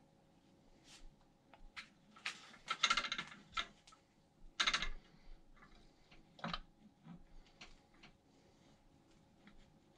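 Scattered light clicks and short rattles of metal parts as the rear wheel of an e-scooter is worked by hand into its mounting plates, with the busiest clatter about three seconds in, another just before five seconds and a single knock at about six and a half seconds.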